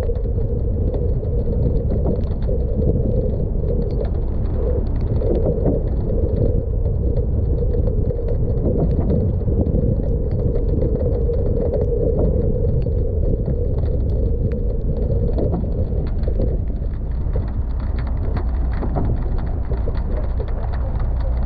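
Car driving slowly on a wet street: a steady low drone of engine and tyres on the wet road.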